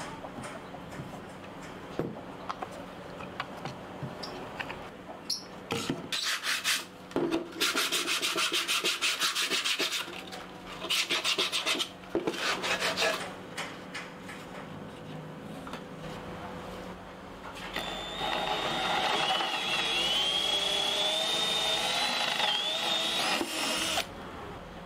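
Fast scraping strokes on wood, about half a dozen a second, in two runs. Later a steady hiss runs for several seconds with a thin wavering whistle over it.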